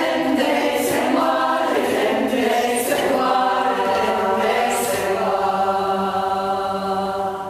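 Community choir of women's voices singing unaccompanied, in a circle led by their choir leader; the phrase moves, then settles about three seconds in on a long held chord that fades out near the end.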